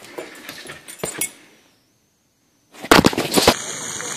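Water from a splash-pad tipping bucket crashing down in a loud burst, then the steady hiss of spraying water. Before it come a few light knocks and about a second of silence.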